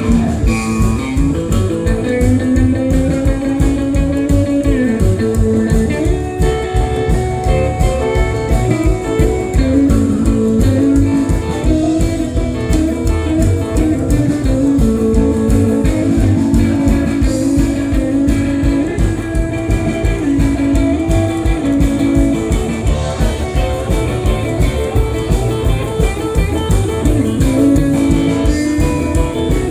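Live band playing an instrumental passage led by guitar, over a steady drum beat and bass.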